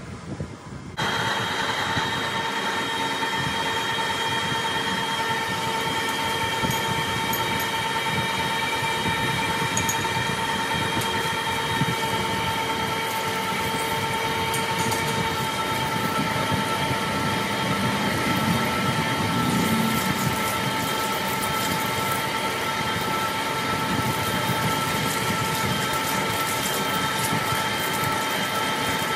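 Heavy manual lathe running while a long boring bar cuts inside the bore of a large metal spindle: a steady grinding machining noise with several steady high tones over it, starting abruptly about a second in.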